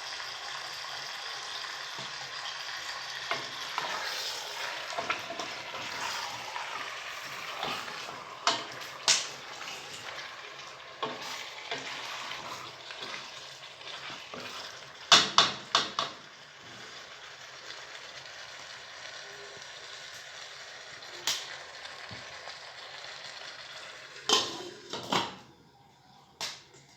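Food sizzling as it fries in a hot pan, with a utensil stirring and sharp knocks of the utensil against the pan, the loudest cluster about fifteen seconds in. The sizzle dies away near the end.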